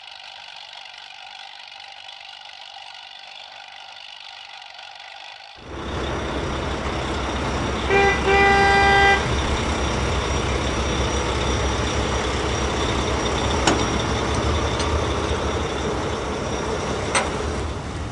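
A vehicle horn toots twice about eight seconds in, first short and then longer, over steady rumbling noise that comes in suddenly about five seconds in. Before that there is only a thin, steady high-pitched tone.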